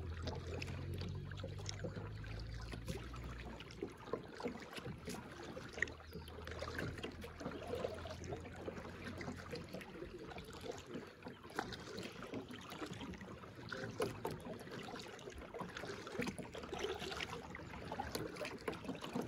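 Kayak paddling on calm water: paddle blades dipping and pulling, water dripping and trickling off them, with small irregular splashes and light knocks. A low rumble lies under the first few seconds.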